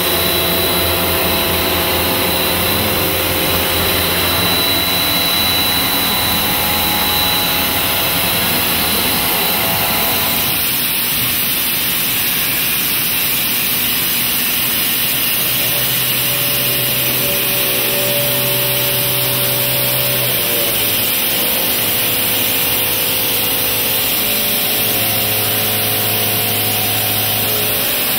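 Milling machine cutting metal with an indexable-insert milling cutter: a steady, loud machining noise with a few steady hums under it, whose pitch shifts about ten seconds in and again about twenty seconds in.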